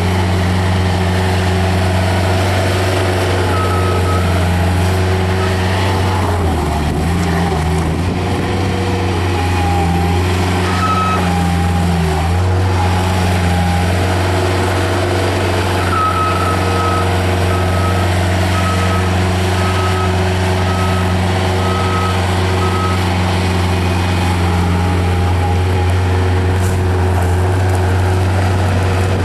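Kubota diesel engine of a Bobcat 753G skid steer loader running steadily while the machine is worked, its pitch dipping and shifting briefly twice as it takes load. From a little past halfway, a high beeper sounds about once a second for some seven seconds.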